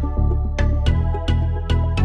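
Instrumental intro of a hip-hop track: a deep bass under short, sharp notes on a steady beat.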